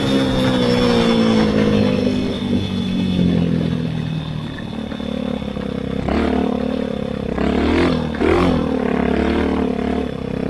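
Grass kart engine running. Its pitch falls over the first two or three seconds as it eases off, then it picks up strongly again about six seconds in, with two brief dips in pitch around eight seconds.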